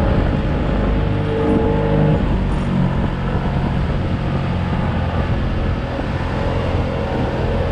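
Small motorboat under way, its engine running steadily under the rush of water and wind.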